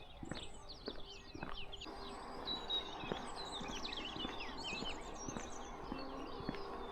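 Small birds chirping and twittering: many quick, high notes that sweep downward, thickest in the middle of the stretch.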